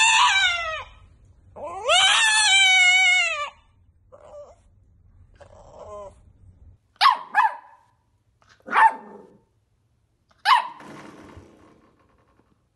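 French bulldog howling in two long drawn-out calls, each rising and then falling in pitch, followed by a few quieter short calls and then four short sharp yips, the first two close together.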